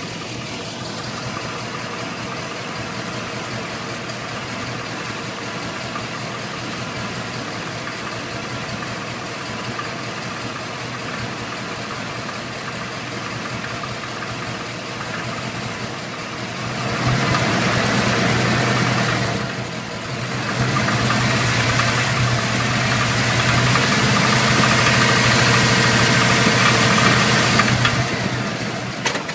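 Crate car engine with about 2000 miles on it, running with a knocking noise that the owner asks may be rod knock. It idles steadily, then is held at higher revs twice: briefly about 17 seconds in, and again for most of the last ten seconds.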